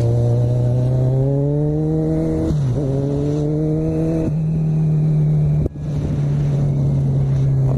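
Kawasaki Z1000 inline-four motorcycle engine pulling hard under heavy wind noise, its pitch climbing through an upshift about two and a half seconds in as the bike overtakes a car. The throttle is then eased at around four seconds, leaving mostly a steady wind rush.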